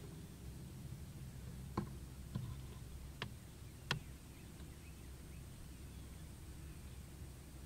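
Faint low steady rumble with four short, sharp clicks between about two and four seconds in.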